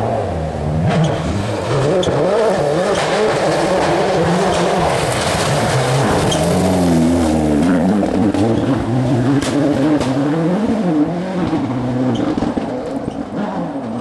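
Ford Focus WRC rally car's turbocharged four-cylinder engine at full effort, its pitch rising and falling through gear changes as it slides through mud, with scattered sharp cracks. It fades slightly near the end as the car pulls away.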